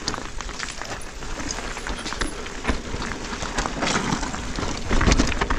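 Mountain bike tyres rolling over loose, dry slate, with a steady stream of sharp clicks and rattles from stones and the bike. A louder low rumble comes in about five seconds in.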